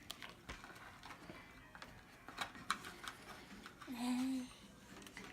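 Spoon stirring slime in a bowl, giving scattered light clicks and taps against the bowl. About four seconds in, a brief steady-pitched voice sound, the loudest thing here.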